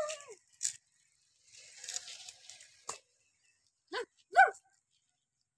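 A white dog whining briefly, then giving two short high yelps about four seconds in, the second louder. A couple of sharp clicks and a soft rustling hiss come in between.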